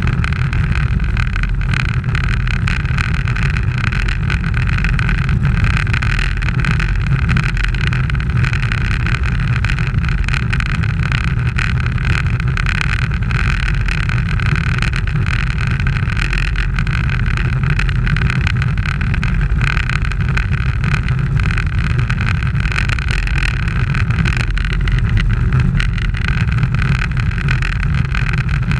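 Steady rush of wind buffeting the microphone of a bike-mounted camera, with road and tyre noise, as a road racing bicycle rides at speed in a pack.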